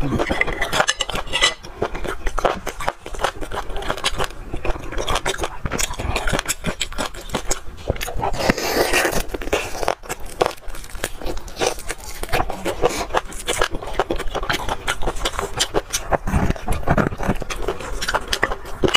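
Close-miked eating sounds: wet chewing, smacking and squelching as sauce-coated beef is bitten and pulled apart by hand, a dense run of small clicks throughout.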